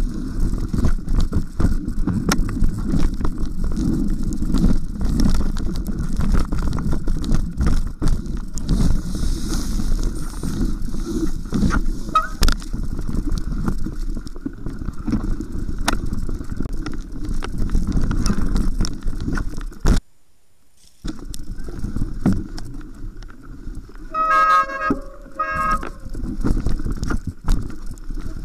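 Specialized Stumpjumper 6Fattie mountain bike riding fast over rock, roots and wet leaves, heard through a bike-mounted camera: a steady low rumble of the wide plus-size tyres with frequent knocks and rattles from the bike. The sound drops away for about a second some 20 seconds in. Near the end the brakes give two short, high squeals as the bike slows.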